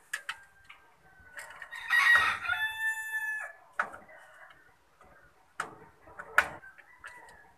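A rooster crows once about two seconds in, ending on a long held note. It is followed by a few sharp clicks as a screwdriver works at the terminals of a plastic junction box, the loudest near the end.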